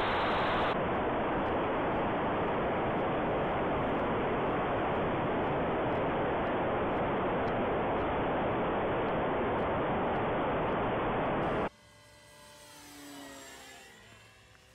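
A 3D-printed RC Cessna 152 in flight, heard from its onboard camera: a loud, steady rush of air and electric-motor and propeller noise that cuts off suddenly about 12 s in. After that comes the faint whine of the plane's brushless motor as it flies past, swelling and fading with a gliding pitch.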